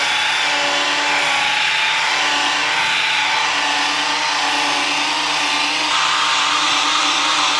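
Electric car polisher with a small pad running steadily, buffing cutting compound into the clear coat: an even motor whine over a hiss, shifting slightly about six seconds in.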